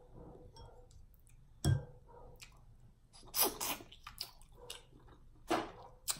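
Close-miked wet mouth sounds of eating a mussel from its shell: a few short, sharp slurps and lip smacks spread across several seconds.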